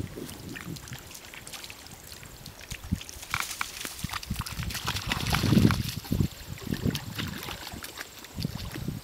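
A dog swimming, its paddling splashing and sloshing the water in irregular bursts, loudest about halfway through.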